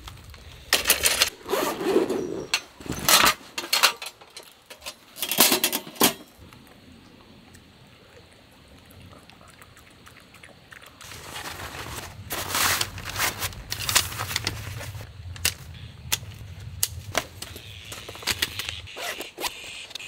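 Scattered knocks, clicks and rustles of camping gear being handled and set out, in two busy spells with a quieter stretch between them.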